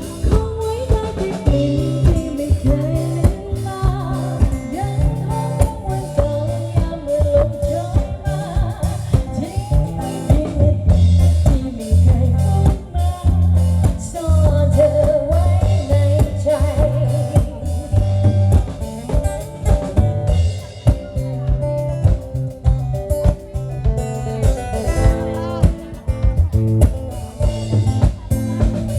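Band music with a singing voice over a drum kit, guitar and a deep, stepping bass line, at a steady beat.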